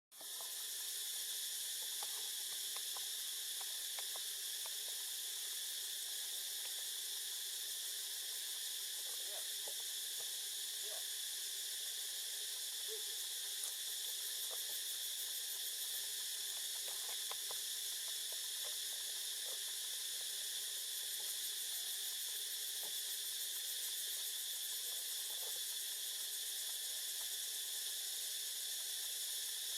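Steady, high-pitched insect chorus, an unbroken hiss-like drone, with a few faint scattered ticks.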